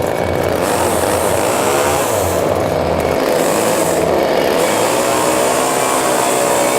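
Gasoline chainsaw running, its engine note wavering up and down.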